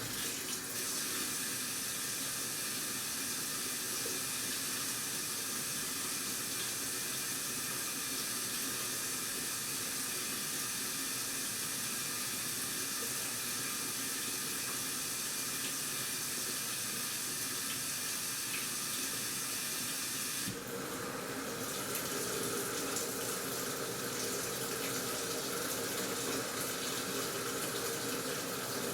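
Washing machine taking in water, a steady rush of running water. About two-thirds of the way through, the sound drops briefly and shifts to a different, fuller rush.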